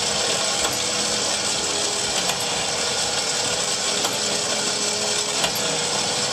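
Front-mounted electric truck winch running steadily, paying out its steel cable, with a steady hum and a few light clicks. The winch has just been repaired and is working.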